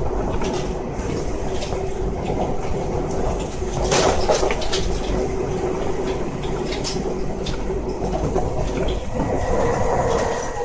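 Keio 1000 series electric train car with a steady hum and rumble, a sharp knock about four seconds in and a few lighter clicks.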